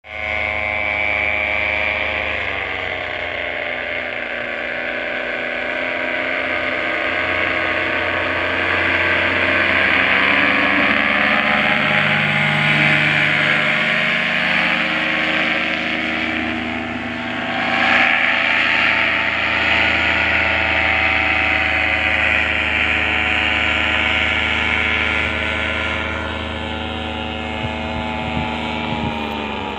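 Paramotor engine and propeller droning steadily overhead, its pitch shifting slowly with the throttle. It is loudest a little past halfway as it passes close, and its pitch falls near the end.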